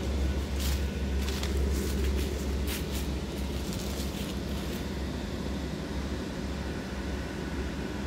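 Steady low hum of the electric blower fans that keep inflatable yard decorations inflated. Irregular crackles of dry leaves crunching underfoot during the first half, which then stop.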